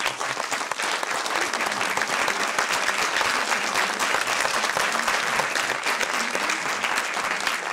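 An audience clapping steadily: sustained applause from a seated crowd in a cinema hall.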